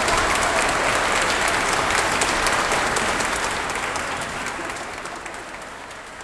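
Audience applauding, the dense clapping fading out steadily over the second half.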